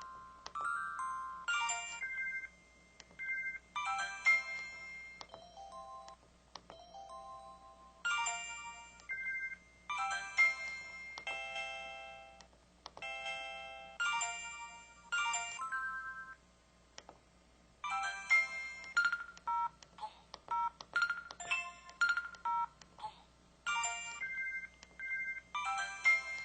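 Samsung SCH-V940 mobile phone playing its built-in sound effects one after another: a series of short electronic chimes and jingles, each lasting a second or two, with brief pauses between them.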